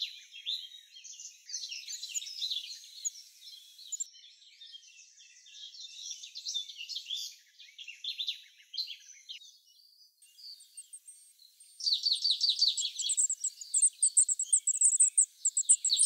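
Goldcrests at the nest: thin, very high chirps and twitters, scattered at first, then a louder, faster run of rapid calls about three-quarters of the way through.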